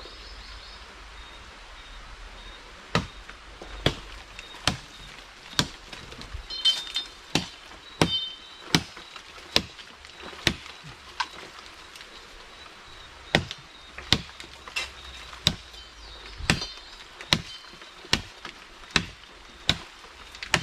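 Machete chopping a dry wooden pole: sharp, evenly spaced strikes about one every 0.8 seconds, starting about three seconds in.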